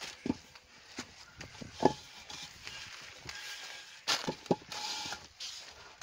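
Aerated concrete blocks being handled: a string of sharp knocks as blocks are lifted from the pallet stack and set down, with a short scraping stretch about four seconds in.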